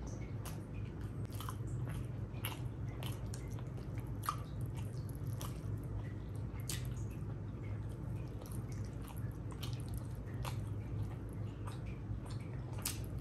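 A person eating rice and curry: wet chewing and squishing with many short, irregular clicks and smacks, over a steady low hum.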